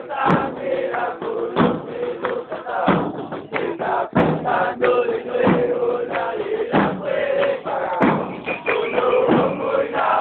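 A football supporters' crowd chanting a song together, with a steady beat of loud thumps a little over a second apart.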